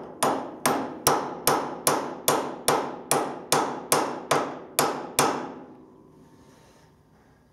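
Hammer blows on a cold chisel against the steel arm of a combine header's Schumacher knife drive, struck to free the arm: an even run of sharp ringing metal clangs, about two a second. The blows stop about five seconds in and a faint ring fades out.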